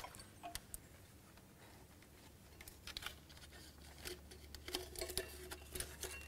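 Faint, scattered clicks and light knocks of metal parts and a wiring harness being handled as a new load cell linkage slides into a Case IH 2000 Series Early Riser planter row unit.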